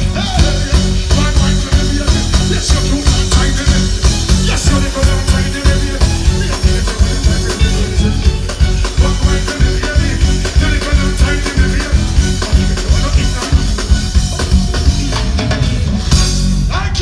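Live dancehall music played loud through a concert sound system, with heavy bass and a steady, evenly pulsing beat.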